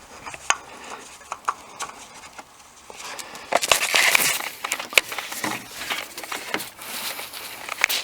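Oil filter wrench being worked on the oil filter to break it loose: scattered sharp metal clicks and knocks, with a louder stretch of scraping and rasping about three and a half seconds in.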